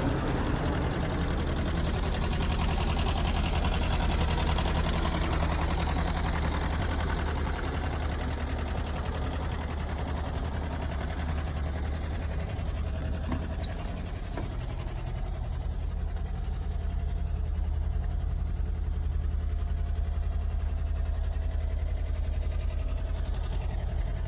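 Air-cooled flat-four engine of a 1976 Volkswagen Westfalia bus idling steadily.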